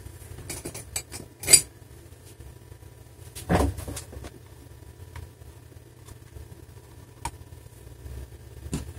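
Metal pick and screwdriver tips scraping and clicking against the plastic base of a laptop as rubber screw-cover bungs are prised out. Scattered light clicks, with a few sharper clicks and knocks.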